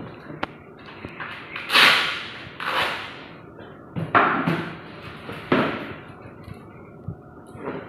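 Handling sounds: a few sharp clicks and four louder knocking, scraping bursts a second or so apart, each fading quickly, as equipment at the donor chair is moved and set up.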